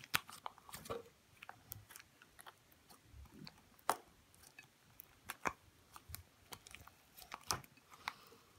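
Slime being squeezed and dabbed against a tabletop, giving irregular small sticky clicks and pops as it grips and pulls away.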